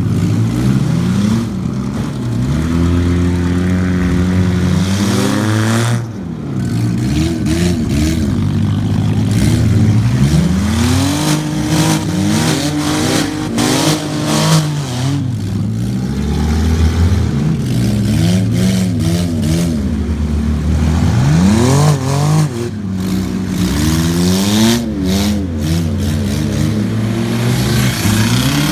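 Several demolition-derby cars' engines running and revving at once, each rising and falling in pitch as the cars accelerate, back up and turn in mud.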